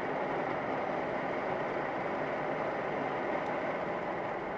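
Steady road noise inside a moving car, heard through the dashcam: tyres on wet asphalt and the engine running at an even cruising pace.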